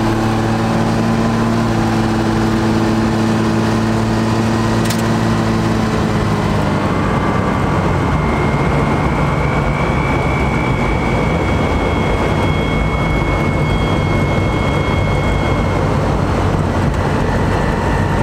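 12-valve Cummins diesel engine running steadily as the truck is driven, turning to a fuller, rougher sound about six seconds in. A faint, steady high whistle comes in partway through, with one sharp click about five seconds in.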